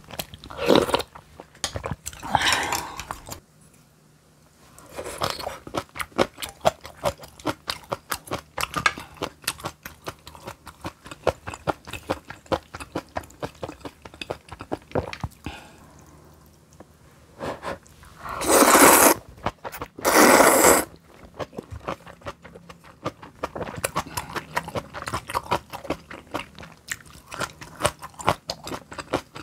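Close-miked chewing of crunchy garlic kimchi: dense, rapid wet crunches throughout. There are a few noisy slurps, with two loud ones, each about a second long, about two thirds of the way through, typical of slurping kalguksu noodles.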